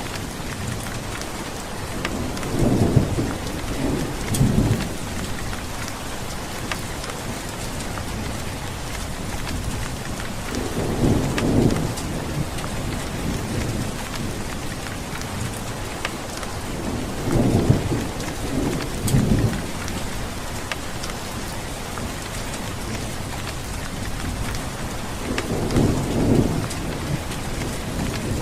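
Steady heavy rain hissing on a surface, with thunder rumbling low four times, each roll lasting one to two seconds.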